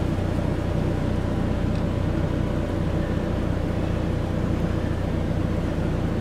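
Forklift engine running steadily with a low, even drone as it lifts a boat's rudder into place.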